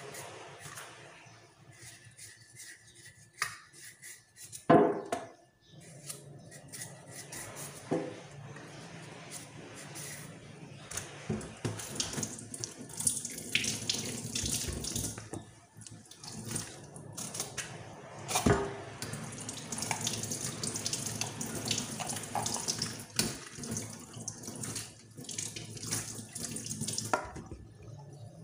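Kitchen tap running into the sink, with a carrot being peeled and rinsed under the stream, from about twelve seconds in. Before that, quieter handling at the counter with a sharp knock about five seconds in.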